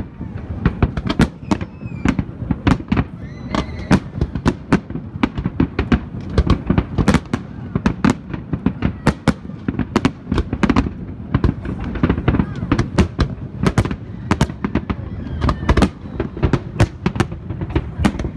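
Fireworks display: a dense, continuous barrage of sharp bangs and crackles from bursting aerial shells, several a second.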